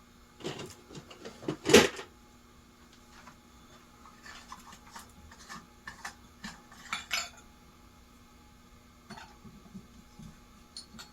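Clinks, clicks and knocks of ceiling fan parts being handled and fitted together. There is a cluster of clicks near the start with one loud knock just under two seconds in, and another run of clicks a few seconds later.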